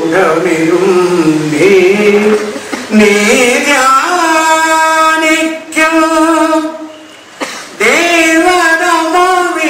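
A man's solo voice singing a line of Malayalam verse with no accompaniment, the pitch moving at first and then settling into long held notes, with a short break about seven and a half seconds in.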